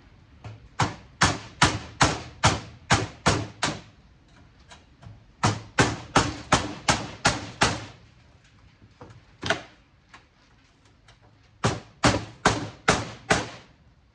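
A hammer strikes a chisel again and again, driving it into the case of a cable TV box to split it open. There are sharp, ringing blows about two a second, in runs: eight, then six, a single blow, then five more.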